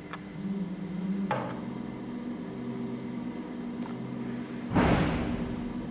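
ERN 150 coil winding machine running slowly with a steady low hum. A light click comes about a second in, and a louder knock or clatter near the end.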